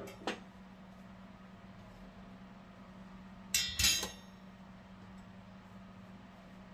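Metal clinks from a gas stove's burner caps and pan-support grates being moved during cleaning: a light click near the start and two sharp clatters about halfway through, over a faint steady hum.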